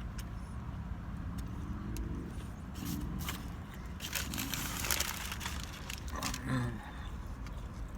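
Crunching and chewing of a crispy fried chicken sandwich, with short crackly noises, over a steady low rumble inside a car.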